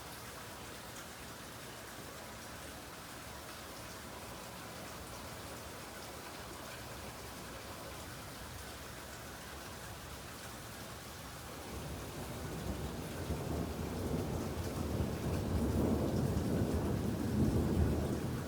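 Steady rain falling, then about two-thirds of the way in a low thunder rumble builds and swells, loudest near the end.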